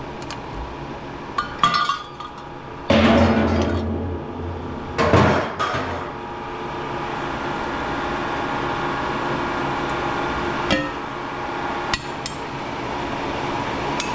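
Clanks and knocks of hand tools striking scrap metal parts: a few sharp hits, then two louder, longer rattling clatters, then two single clicks, over background music.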